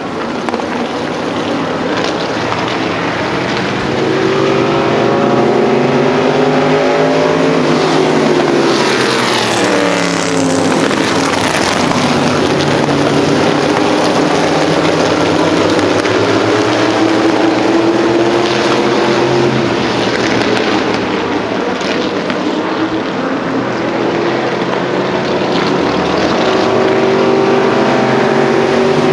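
Race car engines running hard around a short oval track, their pitch swooping up and then down each time cars pass, several times over, with other engines droning further around the track.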